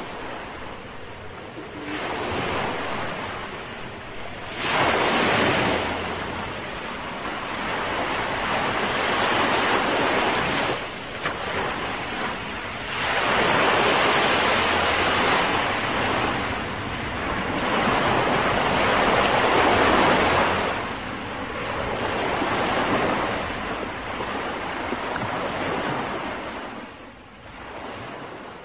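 Sea waves washing in and out, swelling and receding about every four to five seconds, then fading out at the end.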